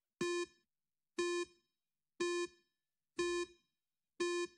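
Countdown timer sound effect: five short electronic beeps at the same pitch, one a second, counting down the seconds of a five-second countdown.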